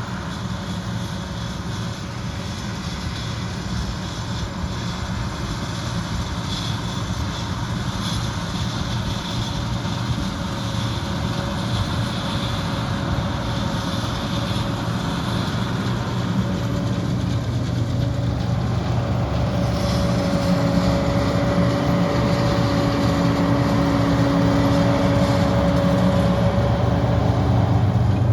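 Heavy harvest machinery's diesel engine running steadily, slowly growing louder, with its engine hum coming up strongly in the second half as the machine gets closer or works harder.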